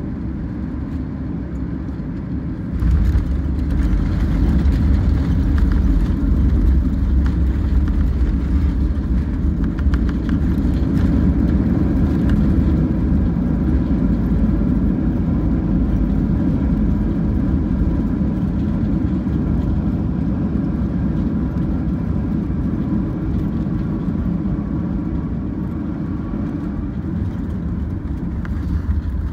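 Cabin noise of a Boeing 737-8 MAX landing: a steady rumble of engines and airflow that jumps louder about three seconds in, as the jet touches down and slows on the runway, then gradually eases off.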